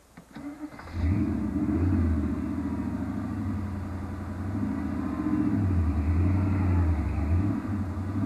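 Carbureted Chevy 350 V8 in a Jeep CJ on 44-inch mud tyres, revved hard under load in surges, easing off and opening up again. The engine comes up sharply about a second in, after a few light clicks.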